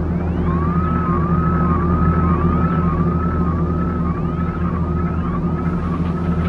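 Heavy-metal guitar soundtrack: a low sustained droning chord under a high lead note bent up and down in pitch over and over, nearly twice a second, giving a siren-like wail.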